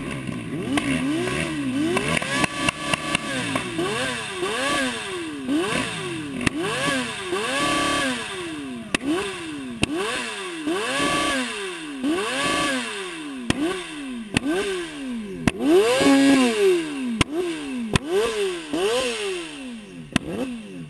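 Motorcycle engine revved over and over, the throttle blipped about once a second so the pitch climbs and drops in a repeating sawtooth, with a few sharp cracks now and then.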